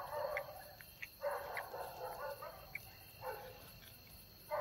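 Dogs barking faintly in a few bouts about a second long, with a thin steady high insect drone behind.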